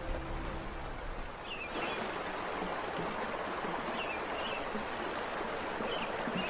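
Rushing river rapids, a steady even rush that grows fuller about two seconds in. A few faint, short high chirps sound over it now and then.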